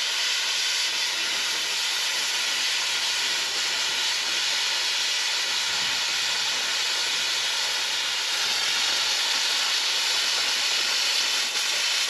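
Handheld plasma cutter cutting through a galvanized steel prop tube: a steady hiss of the cutting arc.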